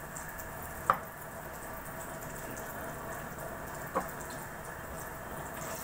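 Chana dal tikkis shallow-frying in hot oil, a steady sizzle as the first side browns. Two sharp clicks cut through it, one about a second in and a softer one near four seconds in.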